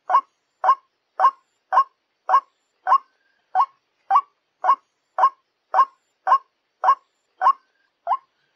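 White-breasted waterhen (ruak-ruak) call played as a lure: a short call note repeated evenly about twice a second, some fifteen times.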